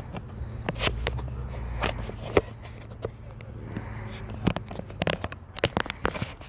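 Small engine of a motorized bicycle running steadily at idle, with many irregular sharp clicks and knocks over it.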